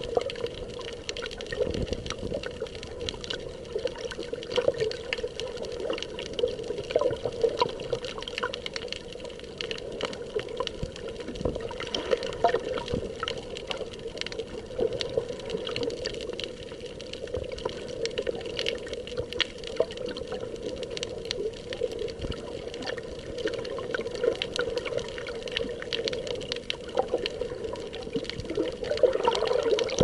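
Water moving around a camera held underwater: a steady watery wash with many small clicks and crackles scattered through it.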